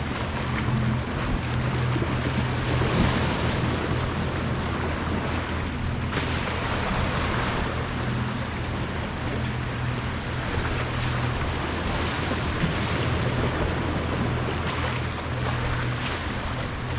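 Steady wind and sea-surf noise over a constant low motor hum.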